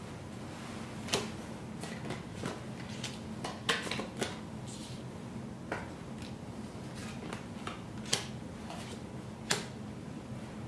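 Spanish playing cards being laid down on a wooden table: irregular light clicks and taps of card on card and wood, over a steady low hum.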